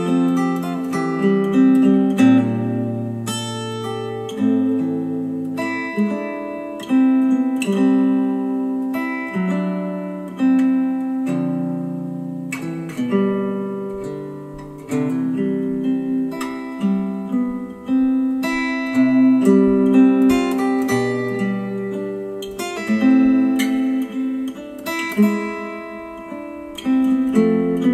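Instrumental acoustic guitar music, a run of plucked notes that ring and die away, played back through Monitor Audio Bronze 100 bookshelf speakers driven by a Cambridge Audio CXA61 integrated amplifier.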